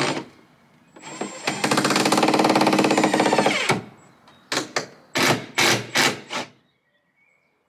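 Handheld power tool running with a fast rattling rhythm for about two and a half seconds, then driven in five or six short bursts of the trigger.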